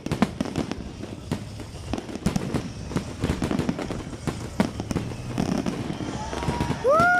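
Fireworks display: scattered bangs and crackles from bursting shells. Near the end a loud voice calls out in a drawn-out note that rises and then falls.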